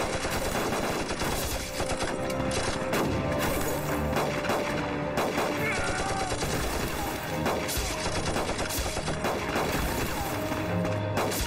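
Dense, rapid gunfire from many guns at once, an automatic weapon firing in bursts among it.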